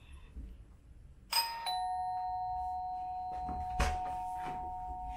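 Two-tone electronic doorbell chime: a higher "ding" about a second in, then a lower "dong" a moment later, both notes ringing on and slowly fading. A single sharp click comes about two and a half seconds after the chime.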